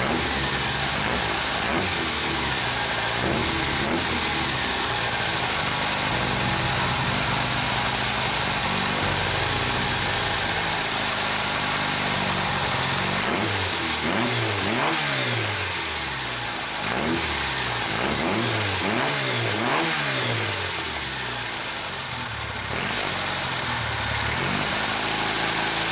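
Fiat Abarth 1000 TC replica's carburetted four-cylinder engine idling. About halfway through it is given a quick string of throttle blips, the revs rising and falling with each one, and then it settles back to a steady idle.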